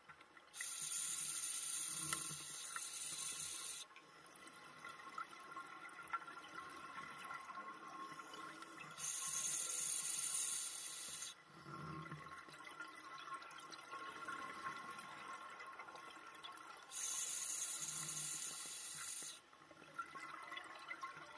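Scuba diver breathing underwater through a regulator: three long hissing inhalations, each about three seconds, roughly eight seconds apart, with softer bubbling of exhaled air in between.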